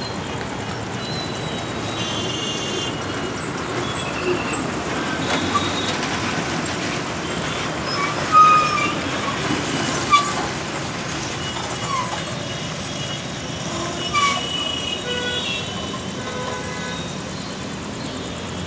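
Road traffic: a steady hum of passing cars with short horn toots scattered throughout, a few of them louder.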